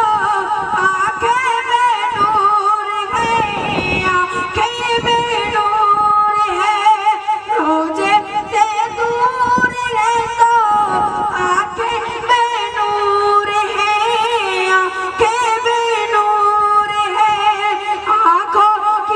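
A boy's high voice singing a naat into a microphone, in long, wavering, ornamented notes.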